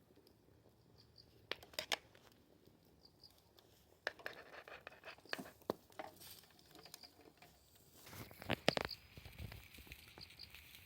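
Scattered rustling and crinkling with sharp clicks and knocks, the loudest about two seconds in and near the end.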